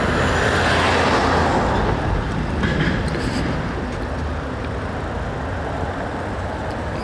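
Wind rushing over the microphone and highway traffic noise while riding an e-bike on a windy day, steady throughout and a little louder in the first two seconds.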